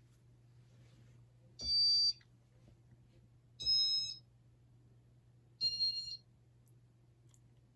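Three electronic beeps from a Casablanca IntelliTouch fan control system, each about half a second long and two seconds apart, over a faint steady low hum.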